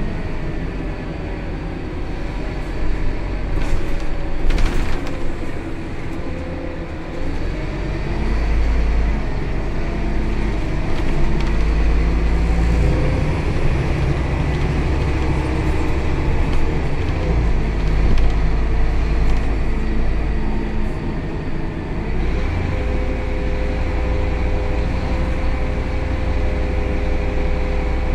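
Scania K280 city bus running under way, heard from inside the rear of the passenger cabin: the engine and drivetrain rise and ease in loudness several times as it pulls away and drives. A few short rattles sound a few seconds in, and a steady hum comes in near the end.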